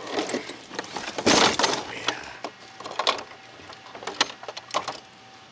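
A large metal RC monster truck being flipped back onto its wheels on gravel: a loud crunching clatter about a second in, then a few sharp knocks and rattles as it is handled.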